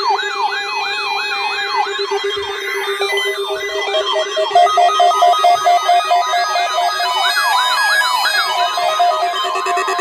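Several weather alert radios and EAS receivers sounding their alarms at once for a NOAA Required Weekly Test. Overlapping electronic siren sweeps repeat about three times a second over a steady tone, and rapid stepped beeps join about three seconds in.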